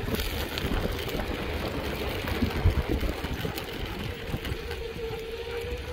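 Mountainboard's air-filled tyres rolling over asphalt: a steady rumbling road noise, with a faint steady whine that is strongest near the end.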